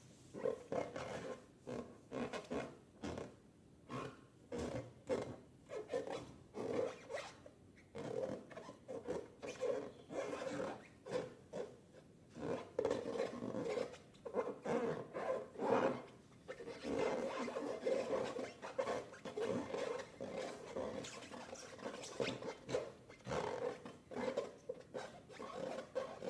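Slime being worked by hand: repeated short squelching, rubbing sounds, about one or two a second, running together more closely in the second half.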